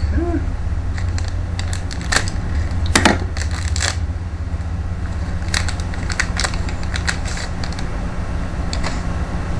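Scattered clicks and crackles of plastic packaging being handled and opened to get at a new CPU, over a steady low hum.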